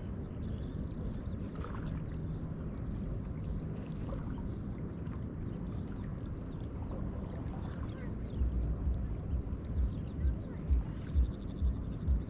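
River waves lapping and splashing with a steady low rumble. From about eight seconds in, a run of low, regular thumps comes in at about two or three a second.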